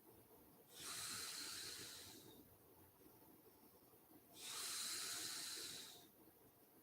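A sleeping woman breathing slowly through her airway: two long, airy, hissing breaths about three and a half seconds apart, each lasting about a second and a half, with little snoring rattle.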